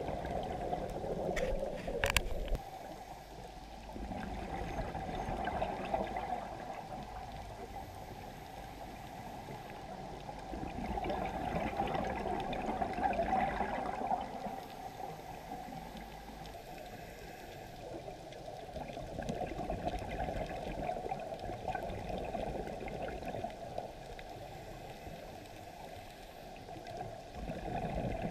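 Scuba regulator bubbles heard underwater, gurgling as exhaled air escapes, in slow swells every several seconds with each breath. There is a sharp click about two seconds in.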